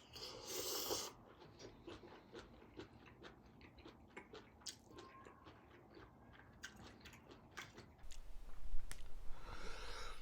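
Close-miked eating of mala ramyun noodles: a slurp in the first second, then soft wet chewing with small mouth clicks, and a louder stretch of eating noise near the end.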